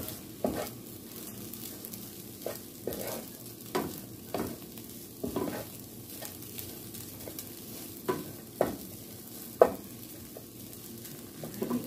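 Wooden spatula stirring cooked rice in a metal skillet over a steady sizzle of frying, with irregular scrapes and knocks against the pan, the loudest about ten seconds in.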